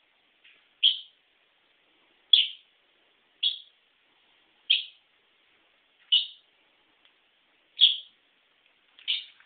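Short, high chirps repeating about every second and a half, seven in all, each falling quickly in pitch.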